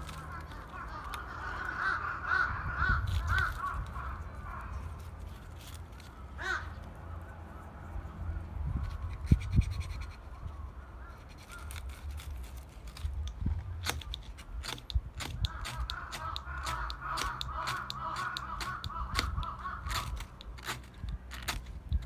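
Wood fire crackling with scattered sharp pops, while a bird calls in two long runs of repeated wavering notes, one near the start and one through the second half.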